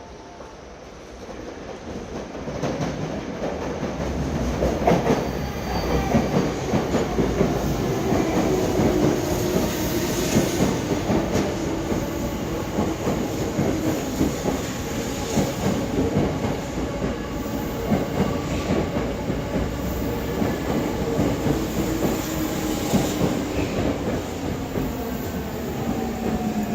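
Tokyo Metro 07 series electric train running into the station and slowing, growing loud from about two seconds in, with wheels clattering rhythmically over rail joints, some wheel squeal and a slowly falling tone as it brakes.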